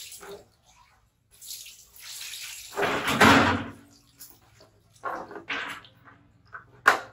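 Water poured from a plastic bowl splashing over a baby monkey and onto a tiled floor: a big splash about three seconds in, then shorter splashes. A sharp knock near the end.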